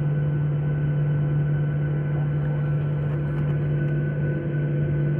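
Airliner's jet engines running steadily before takeoff, heard inside the passenger cabin as an even hum with a strong low tone.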